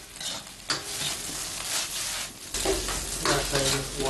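Eggs sizzling in hot oil in a wok while a metal spatula stirs and scrapes them, with repeated short scrapes against the pan.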